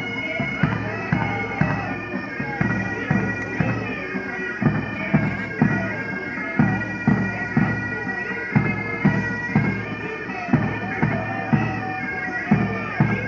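Pipe band playing a march: bagpipe melody over steady drones, with a drum beat about twice a second.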